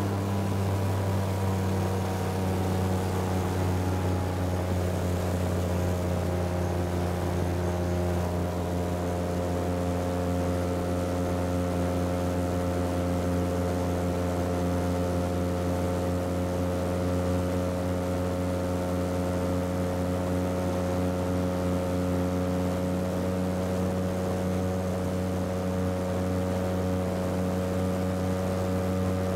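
Titan Tornado II light aircraft's engine and propeller droning steadily in cruise, heard inside the cockpit.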